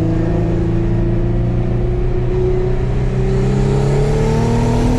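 Twin-turbocharged VQ35DE 3.5-litre V6 of an Infiniti G35 coupe with a Motordyne exhaust, heard from inside the cabin, pulling steadily under acceleration with its pitch rising slowly through the gear. At the very end the steady note breaks off.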